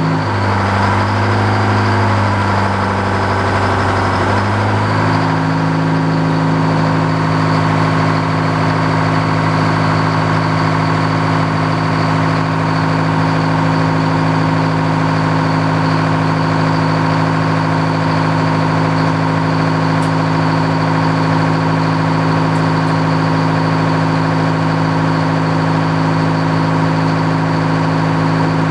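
Engine powering an antique circular sawmill, running steadily. Its pitch shifts during the first few seconds, then holds even.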